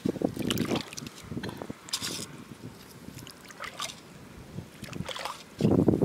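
Shallow seawater sloshing and splashing in irregular bursts as a metal hook probes and stirs the muddy bottom of a tide pool; the splashing gets louder near the end.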